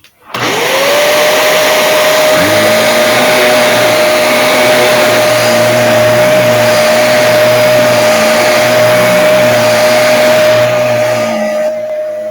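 Vacuum cleaner switched on about a third of a second in, its motor whine climbing quickly to a steady high tone and running loud. A lower wavering hum joins about two seconds later, and the sound drops in level near the end.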